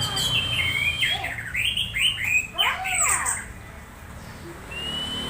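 Orange-headed thrush (anis merah) making its excited calls while set against another bird: a long, steady high whistle that ends about a second in, then a quick run of short sweeping whistled and squawky notes. After a lull, another long steady whistle starts near the end.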